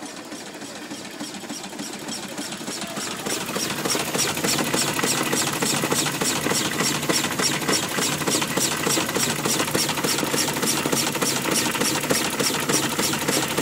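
Six-inch-scale Burrell scenic traction engine running under steam, its crank and motion work clattering in a quick, even rhythm. The rhythm grows louder over the first few seconds and then holds steady.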